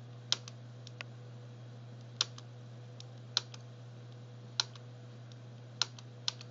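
Sharp single clicks of a computer keyboard key, about seven of them roughly a second apart, several followed closely by a softer release click, over a steady low electrical hum.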